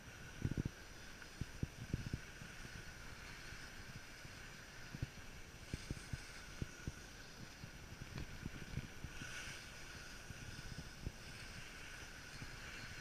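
Skis sliding over packed snow make a steady scraping hiss. Wind buffets the microphone in irregular low thumps, strongest about half a second and two seconds in.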